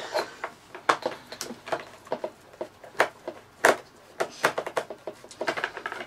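Irregular sharp clicks and knocks of a screwdriver and hands on a vacuum cleaner's plastic housing as its screws are taken out.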